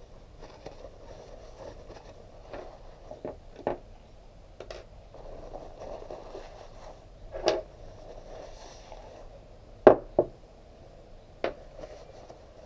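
Paper towel rustling as oily Honda NTV 650 fork parts are handled and wiped, with a handful of sharp knocks and clinks of the metal parts against each other and the table; the loudest are two knocks close together about ten seconds in.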